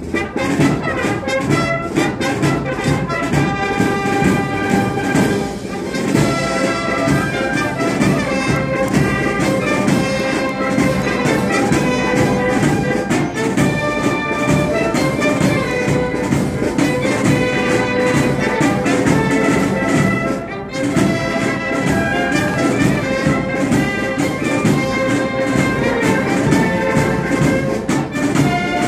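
Military brass band playing, with trumpets and trombones holding notes over a steady drum beat.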